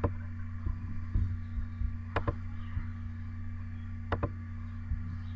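Three sharp computer-mouse clicks, about two seconds apart, over a steady electrical hum.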